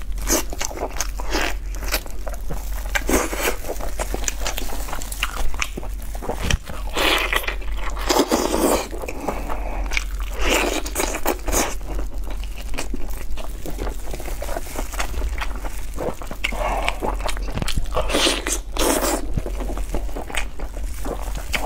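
Close-up eating sounds of roast chicken: biting and chewing the meat and skin, with tearing of the meat by hand. Dense, irregular crackly clicks run throughout, with louder wet crunching bursts every few seconds.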